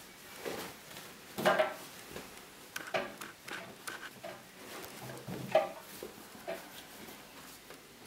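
Laundry being pulled by hand out of a front-loading washer-dryer drum and dropped into a plastic laundry basket: irregular fabric rustles and soft knocks, about six of them, with no machine running.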